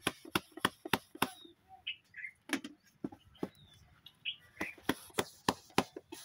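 Palm patting and slapping jowar bhakri dough flat in a steel plate, a quick rhythm of about four pats a second that pauses in the middle and picks up again near the end. Faint bird chirps are heard in the pause.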